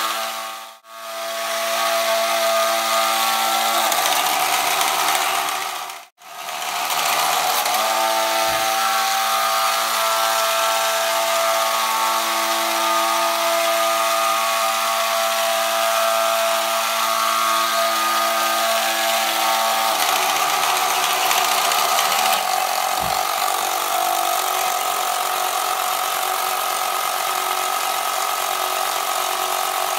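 Mechanism of a 1989 TOMY toy biplane whirring steadily as it drives the propeller, a small motor and plastic gears giving a buzzing hum. It cuts out briefly twice in the first several seconds, and its tone changes about twenty seconds in.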